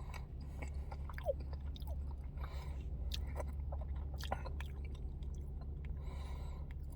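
A person chewing a mouthful of thin-crust pizza, with small wet mouth clicks and smacks, over a steady low hum.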